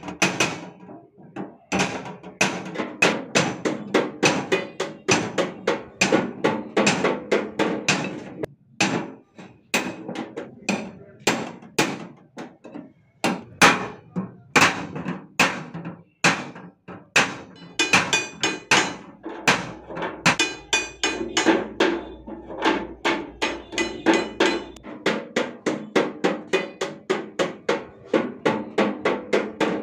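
Hand hammering on thin sheet-metal cooking-oil tins as they are cut open and shaped into boxes: a fast run of sharp metallic blows, about two or three a second, with brief pauses.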